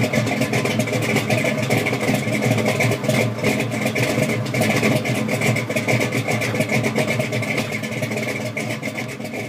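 Car engine running loudly and steadily with a rapid exhaust beat, fading over the last couple of seconds.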